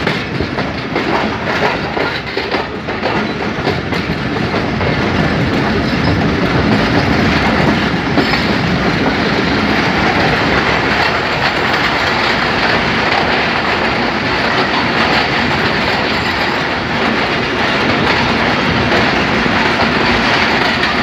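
Pakistan Railways Jaffer Express passenger train, heard from an open coach doorway, its wheels clattering steadily over the rails as it pulls into a station.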